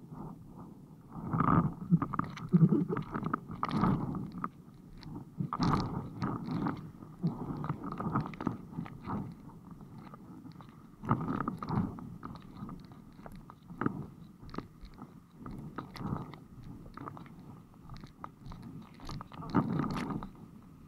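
Windsurf board knocking and slapping over chop, with water splashing against it, heard muffled as through a waterproof action-camera case. The bumps come irregularly; the loudest cluster is about two to four seconds in, with more near six and eleven seconds.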